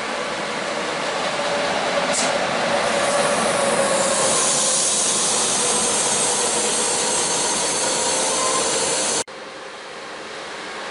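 Passenger coaches rolling past close by, a steady clatter and rumble of wheels on rail, with a thin high squeal from the wheels joining about four seconds in. It cuts off abruptly about nine seconds in, giving way to the quieter, slowly growing rumble of an approaching locomotive-hauled train.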